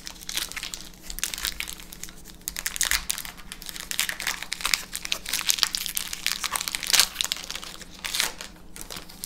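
Foil wrapper of a Magic: The Gathering booster pack crinkling and crackling as it is torn open and pulled apart by hand, loudest about seven seconds in.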